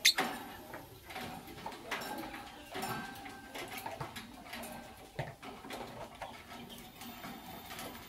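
Blue lovebirds clambering about a wire cage: a sharp clink right at the start, then a run of light taps and scratches of feet and beaks on the wire bars, with a few short soft chirps.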